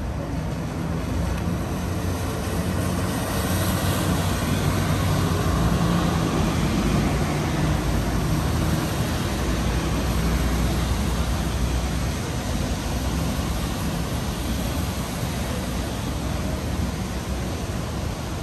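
City street traffic with a low engine rumble that swells over several seconds and then slowly fades as something passes.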